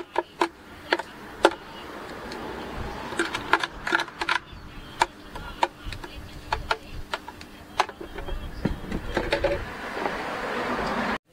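Irregular sharp plastic knocks and taps as a blender jar is tipped and tapped against the rim of a plastic cup to pour out thick strawberry slushie, over a steady background hum. The background noise grows louder near the end, then cuts off suddenly.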